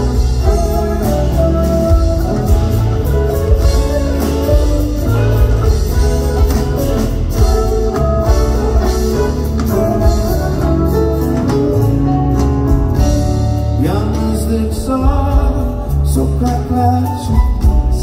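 Live band playing an instrumental passage: an electric guitar lead over drums, double bass and guitar, with a steady beat and strong bass. About fourteen seconds in, one note slides upward.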